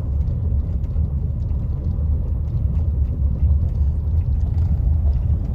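Steady low rumble of road noise and engine heard from inside a moving car.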